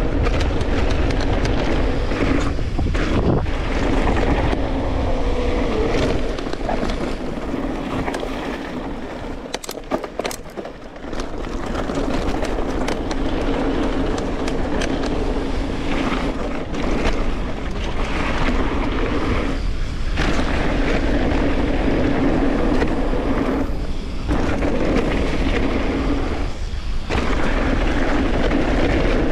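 Electric mountain bike, a Specialized Turbo Levo, ridden down a dirt jump line: wind rushing on the action-camera microphone with the rumble of the tyres and a steady hum. The sound drops away briefly several times, longest about ten seconds in.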